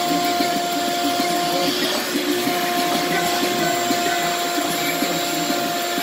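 Craftsman 5.0 peak HP wet/dry shop vacuum running steadily, air rushing through its hose with a constant motor whine that dips briefly about two seconds in.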